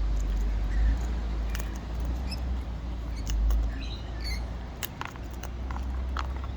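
A cockatoo close to the microphone, making scattered small beak clicks and a few soft squeaks while nibbling, over a low rumble.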